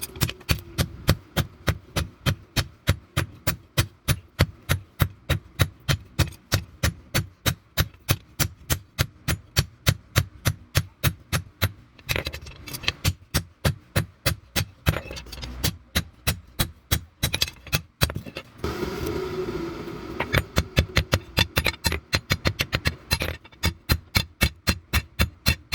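Rapid hammer blows on hot leaf-spring steel over an anvil, about four strikes a second and evenly paced, forging a meat cleaver blade. The hammering breaks off twice, once for about a second and a half, when a steady low rushing noise comes through.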